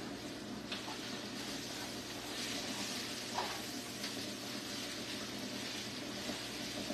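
Food frying in a pan: a steady sizzle, with a faint low hum underneath.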